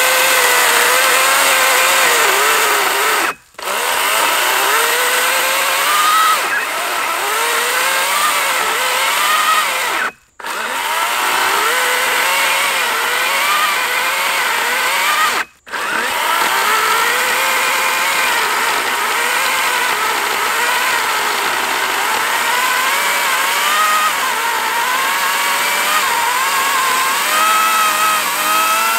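Wild Badger Power 40-volt battery electric chainsaw running under load, cutting through a log of about 12 to 14 inches. Its motor whine wavers in pitch as the chain works in the wood. It stops briefly three times, about 3, 10 and 15 seconds in, and cuts off near the end.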